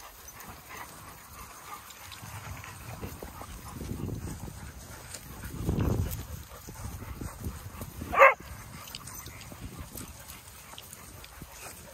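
A dog gives one short, sharp bark about eight seconds in, the loudest sound here, after a couple of low, muffled rumbles.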